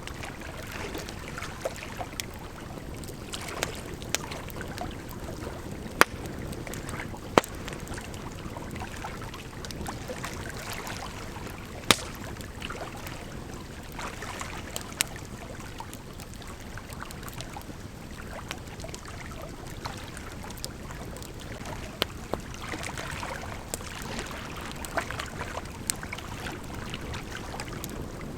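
Campfire wood crackling, with scattered sharp pops, over the steady rush of a gently flowing river.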